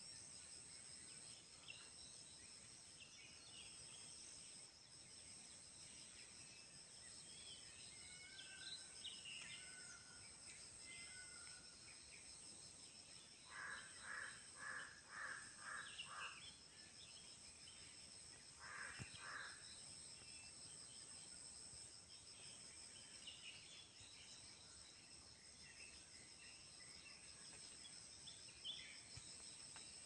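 Faint countryside morning ambience: a steady high-pitched insect drone with scattered bird chirps. About halfway through, a bird calls five times in quick succession, then a few more times a few seconds later.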